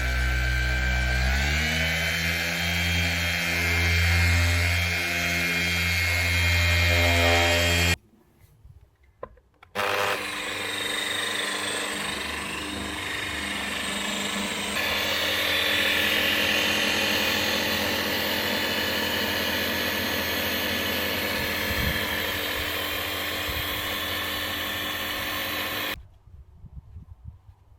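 Electric machine polisher running, its motor pitch stepping up about a second and a half in. After a short break it runs again with a harsher, hissing sound, then cuts off abruptly near the end.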